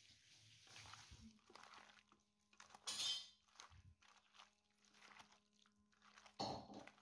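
Hands kneading marinated chicken pieces with onion and potato in a stainless steel bowl: quiet wet squishing and rustling, with two louder contacts against the bowl, about three seconds in and near the end.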